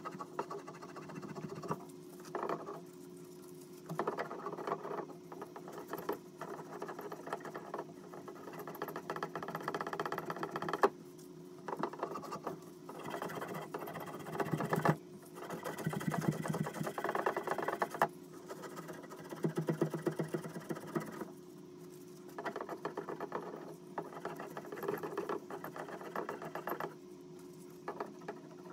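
Hands and a tool working inside an opening cut in a tiled bathroom wall: irregular bursts of scraping, rattling and rapid clicking, with a couple of sharp knocks.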